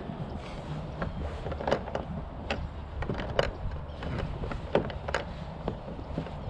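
Scattered light clicks and knocks of gear being handled on a kayak while a tow rope is tied on, over a steady low rumble of wind.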